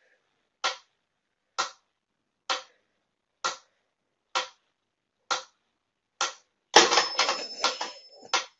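Mechanical pyramid metronome ticking steadily, about one click a second, seven ticks in all. In the last couple of seconds a louder, irregular jumble of knocks and rustling noise takes over.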